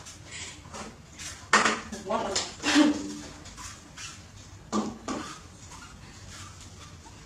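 Clatter and knocks of plastic feeding bottles and a formula milk tin on a tiled floor, loudest in a burst about a second and a half in and again twice near five seconds, mixed with a few short vocal sounds.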